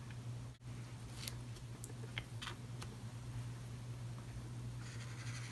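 Faint strokes and taps of a Tombow marker on notebook paper: a few light ticks, then a longer scratchy stroke near the end. A steady low hum runs underneath.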